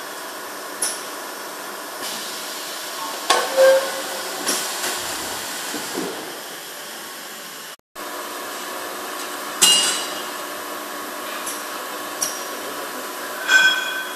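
Automated aluminium profile processing line running with a steady machine hum, broken by about half a dozen sharp metallic clanks with a short ring as aluminium profiles knock against the conveyor and machinery.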